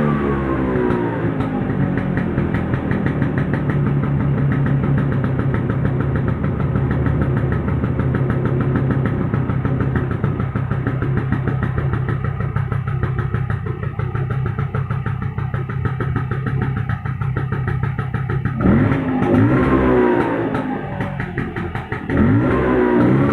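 Bajaj Vespa Deluxe scooter's two-stroke single-cylinder engine warming up. The revs fall back to a steady idle, then the throttle is blipped up and down a few times near the end. The engine stumbles slightly and won't clean out at full throttle, which the owner takes for running rich and still wet with fuel.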